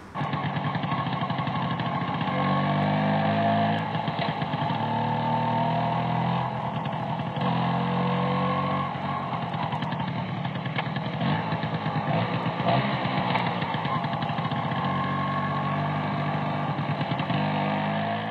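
Motor scooter engine running on the move, its pitch climbing several times as it speeds up, then fading out at the end.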